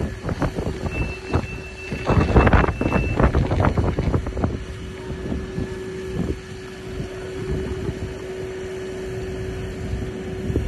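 Turntable ladder fire appliance running at the scene: a long high beep for about two seconds near the start and gusts of wind on the microphone, then a steady hum from the running appliance sets in about four seconds in.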